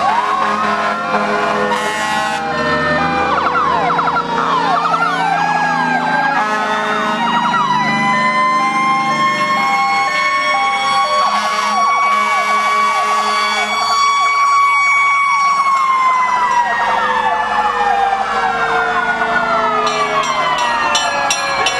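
Several fire-engine sirens wailing at once as the trucks pass, their pitches sliding up and down over one another. One siren rises to a steady high tone, holds it for several seconds, then slowly winds down near the end.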